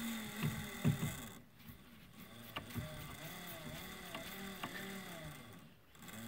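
Treadmill DC motor spun by hand in repeated strokes, working as a generator to drive a wired-up leaf blower motor. It starts as a steady hum with regular knocks, then after a short dip becomes a whir whose pitch rises and falls with each stroke, with a few light clicks.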